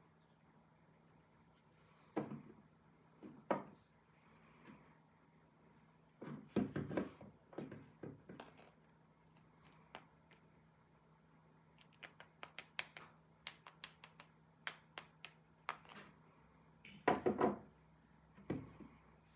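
Hard plastic toy animal figures handled and tapped down on a tabletop: scattered knocks and clicks, a run of quick light taps about twelve seconds in, and a cluster of firmer knocks near the end, over a faint steady hum.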